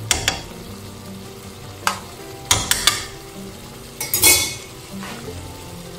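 A spoon stirring a simmering sauce in a pan, scraping and knocking against the pan in several short strokes over a low steady sizzle.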